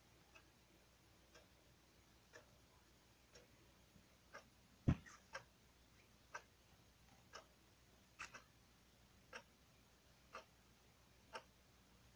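A clock ticking about once a second in a quiet room, with one louder thump about five seconds in.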